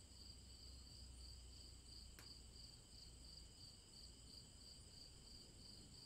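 Faint crickets chirping in an even pulsing rhythm, about two pulses a second, with one faint click about two seconds in.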